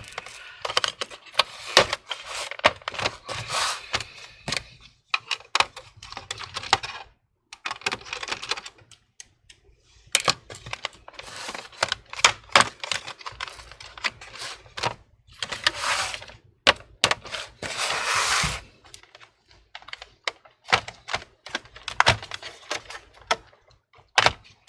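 Plastic laptop case being pried apart by hand: irregular clicks and snaps of the case clips releasing, with two short stretches of scraping about fifteen and seventeen seconds in.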